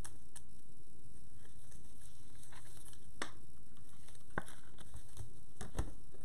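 A handful of light clicks and taps from trading cards being slid into rigid plastic top loaders and set down on a table, over a steady low hum.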